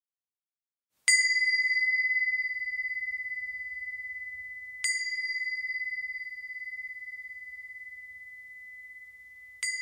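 A small high-pitched bell struck three times: about a second in, again roughly four seconds later, and once more near the end. Each strike rings one clear tone that fades slowly.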